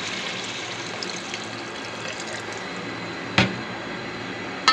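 Water pouring in a steady stream into a pot of chicken and potato curry, with a single sharp knock about three and a half seconds in.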